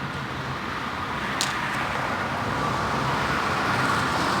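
Road traffic noise, a vehicle going by and slowly getting louder toward the end, with one short click about a second and a half in.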